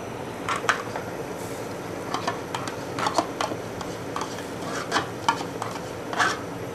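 A spoon clinking and scraping against a metal cooking pot as spoonfuls of yogurt are added to chicken in gravy. About a dozen short, irregular taps come in small clusters over a steady low background noise.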